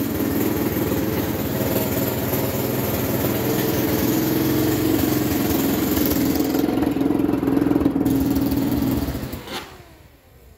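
Bashan ATV engine running steadily at idle with its radiator cooling fan switched on. About nine seconds in the sound cuts off, leaving a brief falling whine as it winds down.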